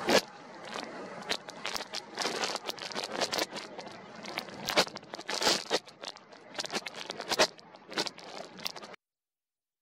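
Strong wind buffeting the camera's built-in microphone in irregular gusts and crackles; it cuts off suddenly near the end.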